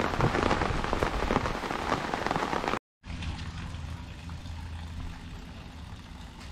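Rain falling, dense with many small drop hits. About three seconds in it cuts out for an instant, then carries on softer and steadier.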